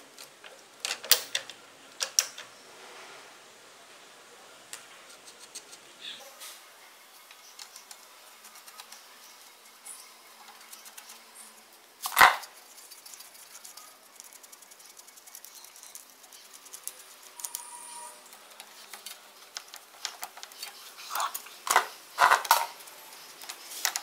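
Sparse metallic clicks and clinks of a chain adjuster, axle nut and tools being handled on a motorcycle's rear axle, with a single sharp clink about halfway through and a quick run of clinks near the end.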